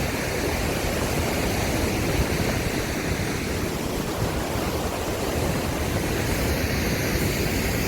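Steady rushing of the River Nile's water near its source: an even noise with no distinct events.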